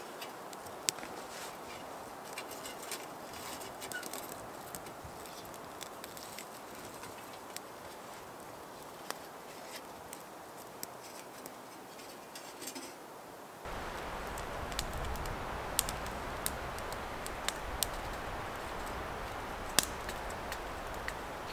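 Small wood fire crackling in a folding hobo stove as spruce shavings burn, with sharp snaps scattered throughout. The crackle gets louder and fuller about two-thirds of the way through.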